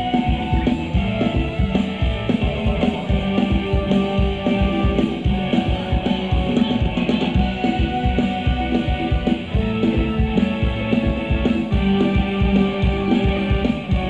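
A band playing Thai ramwong dance music with a steady, driving drum beat and held instrument notes over it.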